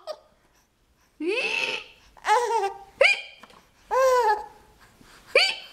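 Baby with hiccups letting out about five short high-pitched squeals and laughs, each one breaking in suddenly with a hiccup catch.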